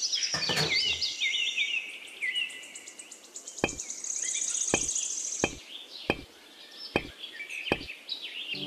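Small birds chirping and twittering continuously, with six sharp light knocks spaced about a second apart through the middle and latter part as miniature clay bricks are set down in place.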